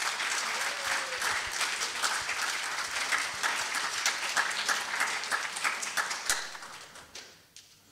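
Audience applauding, a dense patter of many hands clapping that dies away about seven seconds in.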